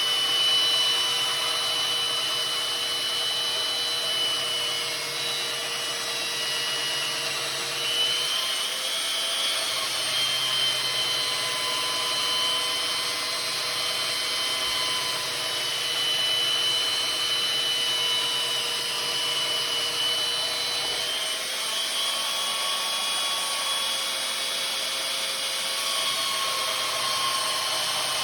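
Electric grinding tool running steadily with a high whine, its pitch shifting slightly a couple of times as it is worked against the steel of a maul's edge, grinding out a nick.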